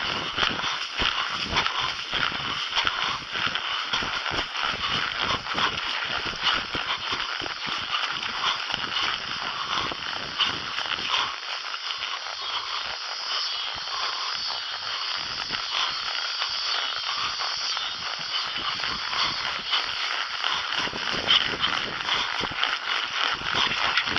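A horse being ridden through brush: steady crackling and scraping of branches and leaves, with hoof falls.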